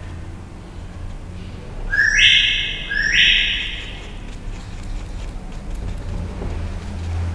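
Two loud, harsh bird calls about a second apart, each starting with a quick upward sweep, over a steady low hum.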